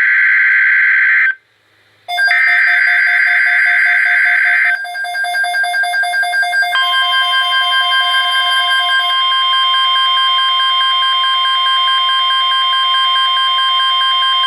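Emergency Alert System signal: digital header data bursts, broken by a short pause about a second in, then a steady single alert tone that starts about seven seconds in and holds, with fainter steady tones underneath. It marks the start of a severe thunderstorm watch alert.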